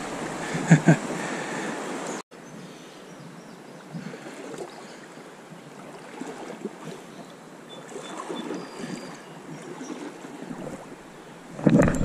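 Steady rush of flowing river water with faint scattered ticks. The sound drops sharply about two seconds in, and a much louder, lower rush of noise comes in near the end.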